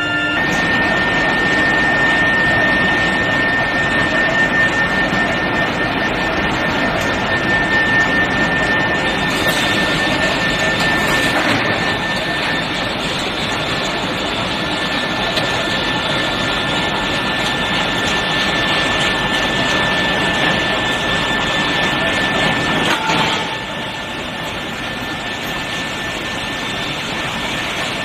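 Machinery of a steel bar hot rolling line with an induction heating furnace running: a steady loud industrial noise with a thin high whine running through it. The noise steps down somewhat about 23 seconds in.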